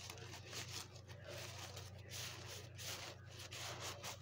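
A cat scratching and pawing at a plastic water container and a piece of cardboard beside it: a faint run of irregular scraping and rustling strokes over a steady low hum. The owner takes it as the cat fussing because her water is not filled to the top.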